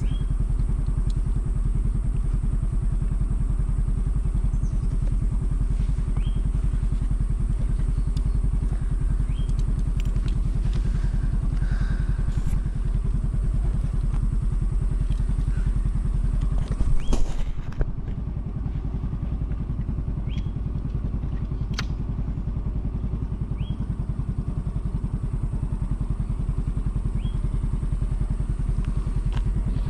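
Motor scooter running on the move, a steady low rumble, with a brief louder knock or clatter about 17 seconds in.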